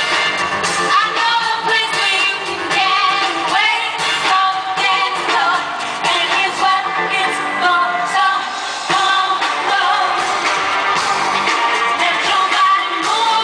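Live pop concert music with singing, loud and continuous.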